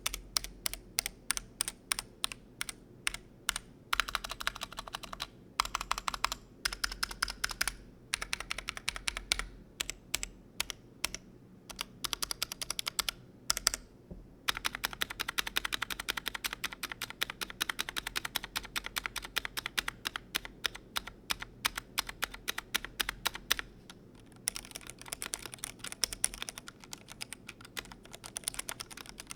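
Glorious GMMK Pro mechanical keyboard being typed on for a sound test: runs of quick, clacky keystrokes broken by short pauses, with a long, fast, continuous run in the middle.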